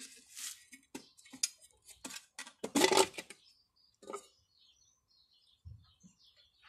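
Clicking and clattering of a Pedrollo jet pump's loose impeller and diffuser being worked out of the pump housing by hand, loudest about three seconds in. The impeller's retaining nut is missing.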